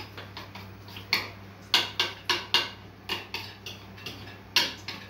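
Metal spoon clinking against a ceramic bowl while stirring a wet mix of falafel dough and egg: irregular taps, a few every second, two of them louder.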